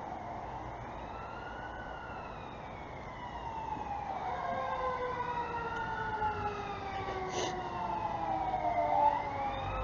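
Several sirens wailing at once, their pitch rising and falling in slow overlapping sweeps, growing louder from about four seconds in.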